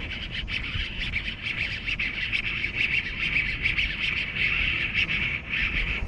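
Birds chirping without a break, a dense run of rapid high calls, over a steady low rumble.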